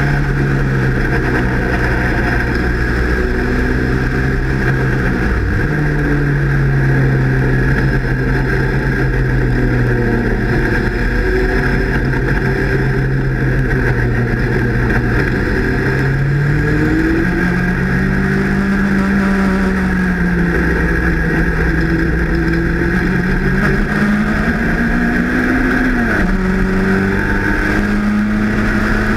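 Race car engine heard from its own open cockpit under racing load. The note falls as the car slows about 5 s in, rises steadily under acceleration from about 16 s, drops at an upshift near 26 s and climbs again.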